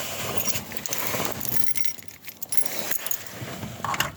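A bunch of car keys jangling and clinking as they are picked up and handled, in a scatter of light metallic clicks.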